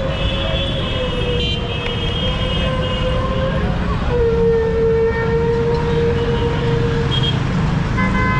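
Road traffic rumbling, with long, steady vehicle horn blasts over it: one through the first few seconds, a second, louder one from about halfway, and a short one near the end.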